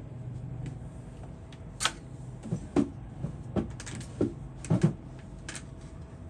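About eight irregular light knocks and clicks of tools and parts being handled on a repair workbench, starting about two seconds in, over a steady low hum.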